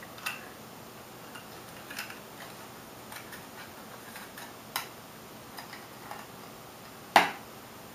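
Small scattered clicks and taps from hands fitting a black rubber antenna onto a plastic USB Wi-Fi adapter, with a sharper click about seven seconds in.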